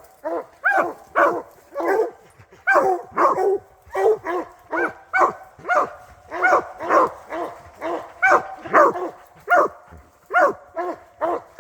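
Bear hounds barking treed at a bear: a steady run of short, arched barks, about two a second.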